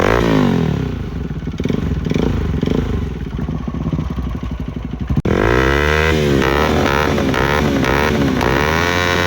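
Motorcycle engine revved repeatedly, its pitch rising and falling with each blip of the throttle. About five seconds in it cuts off abruptly and electronic music with a repeating beat takes over.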